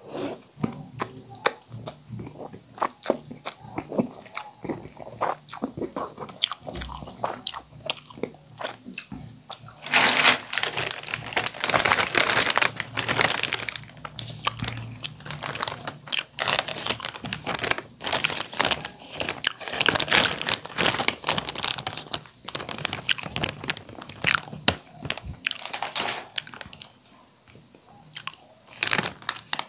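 Eating sounds: slurping and chewing spicy instant noodles, with scattered wet clicks. About ten seconds in, a long stretch of loud, dense crinkling begins as the plastic noodle packet is handled. It pauses briefly near the end and then starts again.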